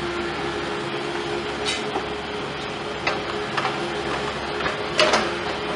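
Excavator engine running steadily, with a few sharp metallic knocks from the machine.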